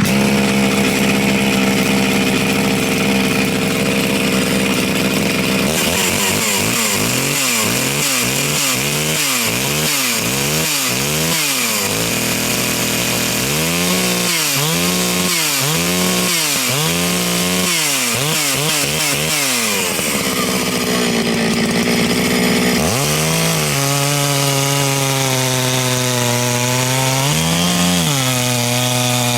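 Farmertec MS660 clone, a large two-stroke chainsaw, running loud at full throttle while cutting through wood. Its pitch swings up and down about once a second through the middle stretch, and more slowly near the end.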